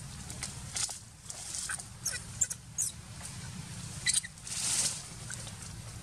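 A series of short, high-pitched animal squeaks and chirps, about half a dozen of them, some gliding in pitch, over a steady low rumble, with a brief hiss a little before five seconds in.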